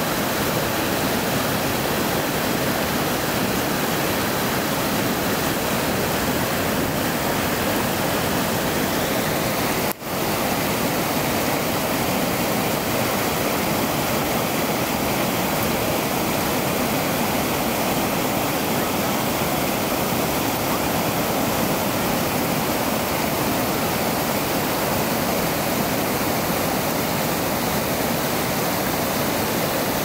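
Låtefossen, a twin waterfall in heavy flow, crashing down rock into spray: a steady, dense rush of water noise, broken by a momentary dropout about ten seconds in.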